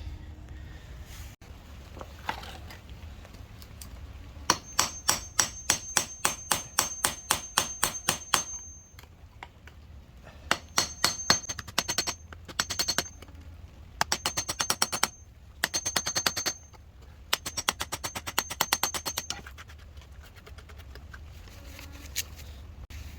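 Hammer striking a steel chisel to chip out concrete, rapid strikes about four or five a second with a high metallic ring. The strikes come in five runs with short pauses between them.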